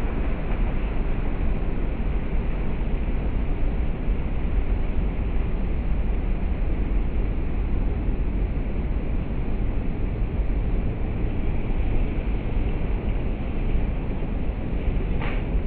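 Steady rushing of surf from a rough sea breaking on rocks, with wind buffeting the microphone as a heavy low rumble. A brief sharp sound near the end.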